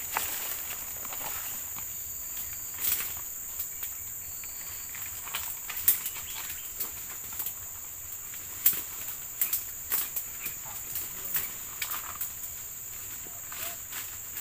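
Steady high-pitched drone of a forest insect chorus. Over it come irregular sharp clicks and rustles of handling close to the microphone, about a dozen, the loudest near six and nine seconds in.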